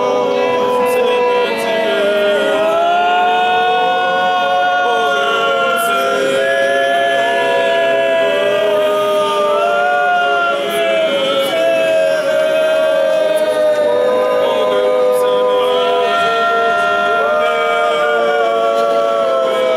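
Church choir singing unaccompanied, several voices holding long notes in harmony.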